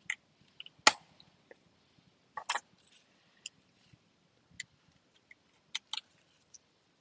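Sharp plastic clicks and snaps from a small electrical connector at a Mercedes engine's camshaft as its lock is squeezed and the plug is worked off. There is one loud snap about a second in, a quick double click about two and a half seconds in, another pair near the end, and lighter ticks between.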